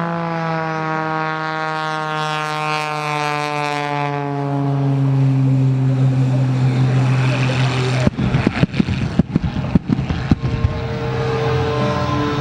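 Wolf Pitts Pro aerobatic biplane's engine running loud, its note falling in pitch as it passes. About eight seconds in, a rapid series of about a dozen sharp bangs from airshow pyrotechnics goes off over a couple of seconds, and then the engine is heard again.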